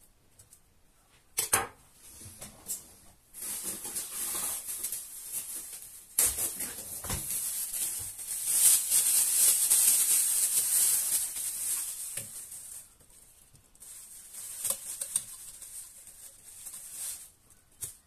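A thin clear plastic bag crinkling and rustling as it is opened and handled, loudest near the middle. A few sharp knife clicks on the counter come before it.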